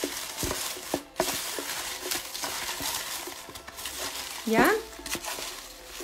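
A hand stirring a box full of small folded paper slips, a continuous dry rustling and crinkling as the raffle slips are mixed.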